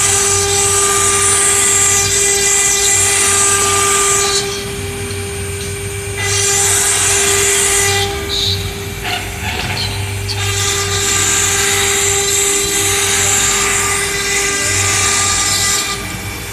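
Water-cooled spindle of a 1325 stone CNC router running with a steady whine while its bit cuts into a stone slab, a harsh high grinding coming in three long stretches. The grinding drops away for a couple of seconds about four seconds in, again around eight to ten seconds, and near the end.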